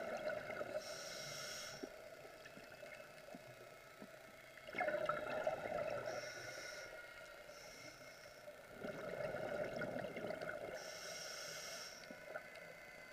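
Scuba diver breathing through a regulator underwater: short hissing inhalations alternate with longer bubbling exhalations, with two louder exhalations about five and nine seconds in.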